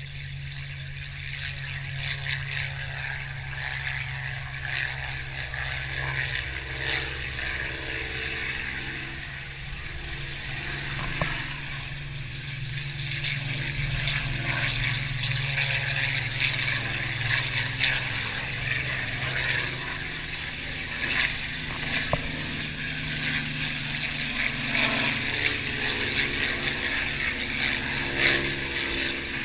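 Propeller-driven aircraft engines running, a continuous sound that gets a little louder about two seconds in and stays up.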